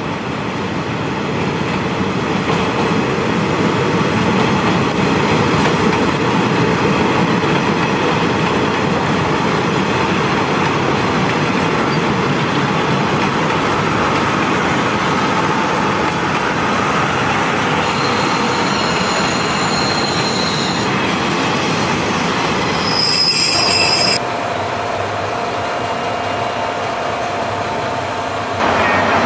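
Train running on the rails, a steady rumble with high-pitched wheel squeal about two-thirds of the way through. About 24 s in the sound drops abruptly to a quieter steady hum with a single whining tone, then comes back louder just before the end.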